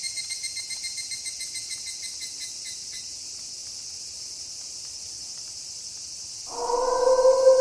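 Night insect chorus of crickets: a steady high-pitched trilling, with a pulsing chirp that fades out over the first three seconds. About six and a half seconds in, a wolf starts a long, steady howl that is louder than the insects.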